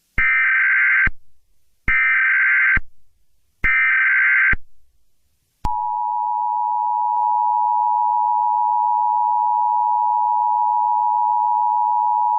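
Emergency Alert System SAME header: three loud digital data bursts, each just under a second long, with a short gap between them. About five and a half seconds in, the steady two-tone EAS attention signal begins and holds.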